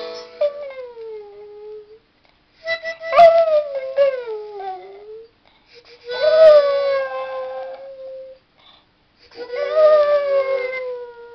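A small dog howling along to music being played: four long howls with short breaths between them, each holding a pitch and then sliding down at the end.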